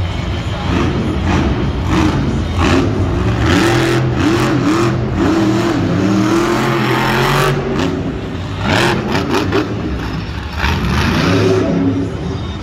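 Monster truck's supercharged V8 revving hard, its pitch surging up and down, with several sharp knocks along the way.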